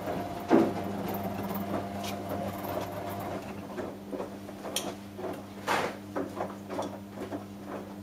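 Front-loading washing machine tumbling a wet load in the wash phase: a steady motor hum under irregular thumps and swishes of clothes and water dropping in the turning drum, with one sharper knock about half a second in.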